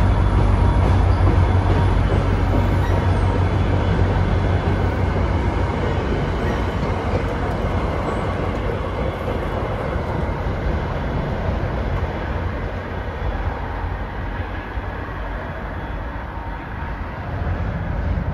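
Train running on the rails with a heavy low rumble, loud at first and fading gradually.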